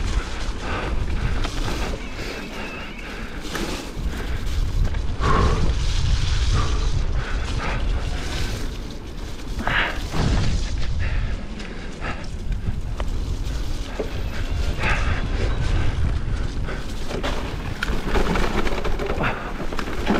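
Cannondale Moterra LT2 mountain bike ridden downhill on a rough trail: a heavy, steady low rumble with irregular knocks and rattles from the bike over the ground.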